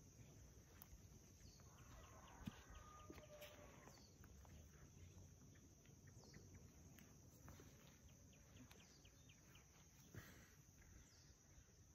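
Near silence: faint rural outdoor ambience with a steady high hiss and small bird chirps now and then, and a distant rooster crowing about two seconds in.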